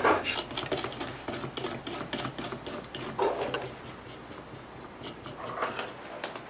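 Cotton swab scrubbing back and forth over a fan's circuit board around a freshly soldered chip, a quick run of scratchy strokes, densest in the first few seconds and thinning out after.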